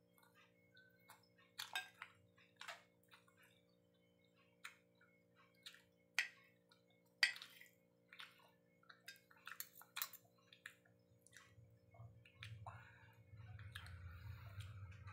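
Faint eating sounds: a spoon and fork tapping and scraping on a plate, with close-up chewing, heard as scattered light clicks. The clicks grow busier near the end, with a low rumbling noise under them.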